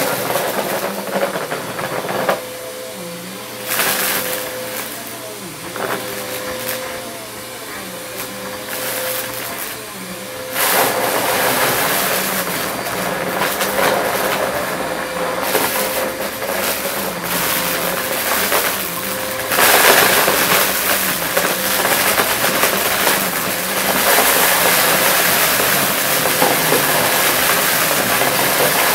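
Upright bagless vacuum cleaner running steadily, its head pushed back and forth through a heap of confetti, beads and small plastic bits that rattle up the suction into the bin. The pickup noise swells with each forward stroke and grows louder from about ten seconds in.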